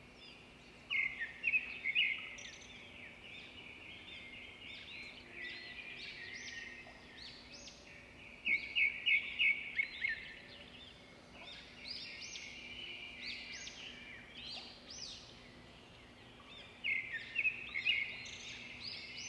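Songbirds singing: loud clusters of quick, high chirps about a second in, again around nine seconds and near the end, with softer scattered calls between.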